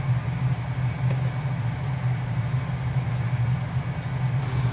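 Washing machine running in the background with a steady low hum.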